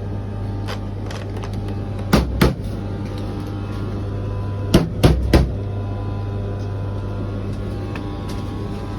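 Beko tumble dryer running with a steady motor hum, broken by sharp knocks: two about two seconds in and three in quick succession about five seconds in. The knocking is part of the strange noise the dryer is making.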